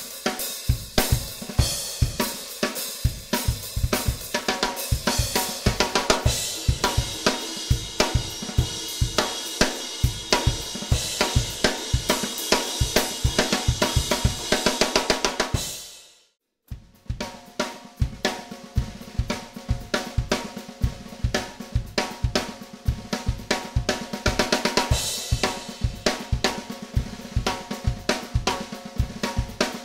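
Drum kit played with sticks, built around a Sonor Artist Earth 13x5 snare with a thick 28 mm beech shell, with hi-hat, cymbals and bass drum in a steady stream of strokes. A little past halfway the sound drops away to silence for about half a second, then the playing comes back in.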